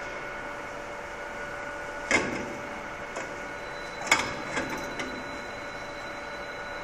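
Stainless-steel electric coffee-bean grinding mill running with a steady hum. A few sharp knocks sound, the loudest about two seconds and four seconds in.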